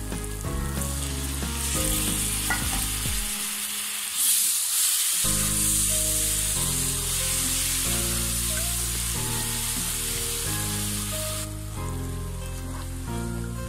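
Onion, garlic and chili masala sizzling in hot oil in a pan. About four seconds in the sizzle turns louder as a little water goes in to cook the masala down, and it eases off near the end as the wet masala is stirred.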